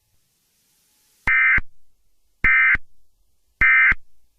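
Emergency Alert System end-of-message data bursts: three short, identical buzzy bursts of digital tones about a second apart, marking the end of the alert message.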